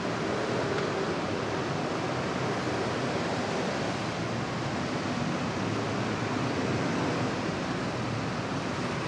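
Steady, even wash of city traffic noise, with no single vehicle standing out.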